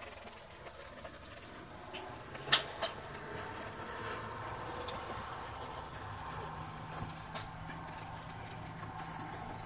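Graphite pencil scratching lightly across sketchbook paper as a landscape is sketched. There are a few sharp clicks, the loudest about two and a half seconds in, and a faint low steady hum comes in about two seconds in.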